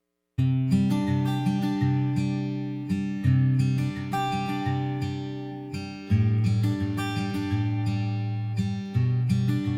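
Background music: an acoustic guitar picked and strummed, starting sharply after a moment of silence.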